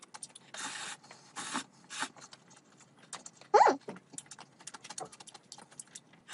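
Slurping instant ramen noodles off chopsticks, with many small clicks of chopsticks against a plastic tray between mouthfuls. A short, loud pitched sound about halfway through is the loudest moment.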